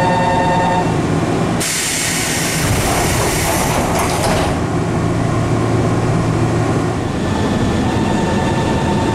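Nankai 6200-series train's door-closing warning tone, which stops just under a second in. Its pneumatic doors then close with a hiss of air lasting about three seconds and a knock as the leaves meet about four seconds in, followed by a steady low hum from the standing train.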